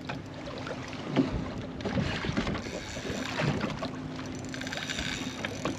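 Wind and water noise aboard a small open boat, with a steady low hum running under it. There are scattered faint clicks and a brief patterned buzz from the spinning reel while a hooked fish is fought on a bent rod.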